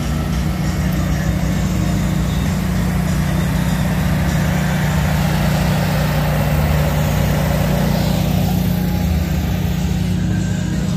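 Food trailer's generator running steadily, a constant low engine hum.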